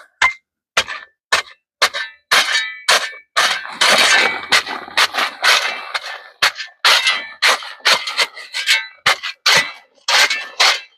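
A hand digging tool striking and scraping hard, rocky ground: a quick, uneven run of sharp clinks and crunches, about two a second, thickest a few seconds in.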